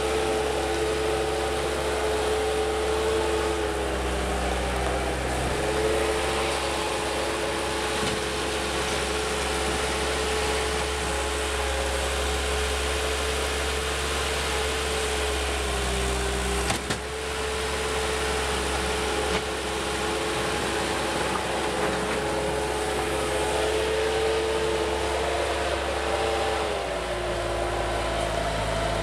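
Bobcat 873 skid-steer loader's diesel engine running steadily as the machine moves and works its bucket. Its pitch dips briefly a few times and drops lower near the end, with one short knock about seventeen seconds in.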